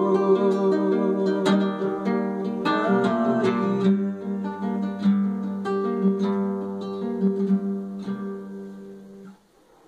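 Acoustic guitar strumming and picking the closing chords of a song, with a held low note under the strums. It grows quieter over the last several seconds and stops shortly before the end.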